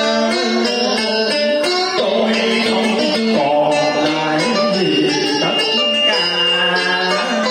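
Live Vietnamese cải lương-style music: a man sings with a plucked đàn sến lute and a bowed đàn cổ two-string fiddle accompanying him, the melody sliding and bending over a steady held low note.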